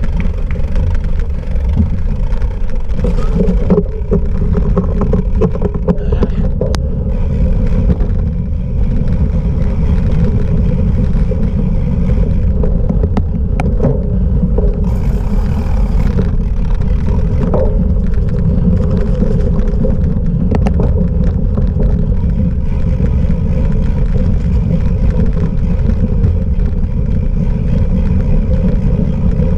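Wind rumbling over the microphone together with the rolling noise of a cyclocross bike ridden off-road, a steady low rumble broken by a few sharp rattles.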